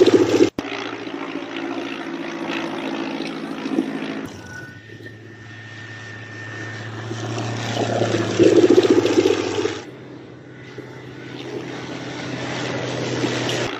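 Propeller aircraft engine droning steadily, in several stretches that cut abruptly into one another and change in level, swelling loudest about eight to ten seconds in.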